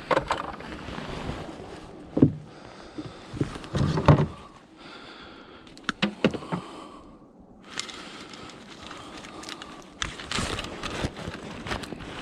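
Knocks and clatter of junk being handled and shifted in a pile of discarded household items, with a few sharp knocks about two and four seconds in and a cluster of smaller clicks around six seconds.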